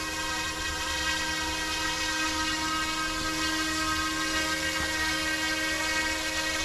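Small battery-electric RC scale helicopter (UXIANG/YXZNRC F09-S UH-60 Black Hawk, 425 mm rotor) hovering: a steady, high-pitched electric motor and rotor whine.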